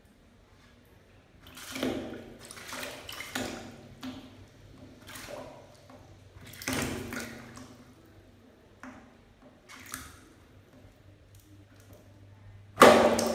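Rats splashing in water inside a plastic bucket trap: a string of irregular splashes, with one sudden, much louder splash near the end.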